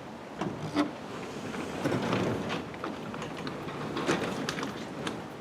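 Old wooden sectional garage door being pushed open by hand, its rollers rumbling and ticking along the tracks; this door runs a bit stiff.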